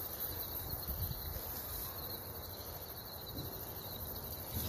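Steady, high insect chirring, a fine even pulsing, over a low rumble.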